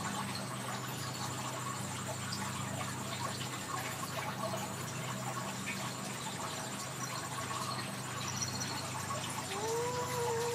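Steady low hum and a faint high whine in the room, then near the end one soft Ragdoll cat mew about a second long, rising, holding and falling in pitch.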